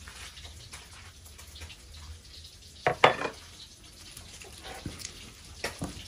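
Stone pestle knocking and grinding in a stone mortar (ulekan and cobek), crushing red chillies into a spice paste. A sharp double knock comes about three seconds in, with lighter knocks near the end.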